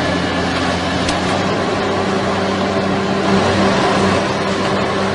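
A heavy machine's engine running steadily under load, an even drone with a constant pitch and a dense mechanical noise.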